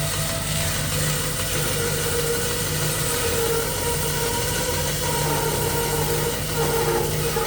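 Hammer N2-35 bandsaw running steadily, with a low motor hum and a wavering higher whine.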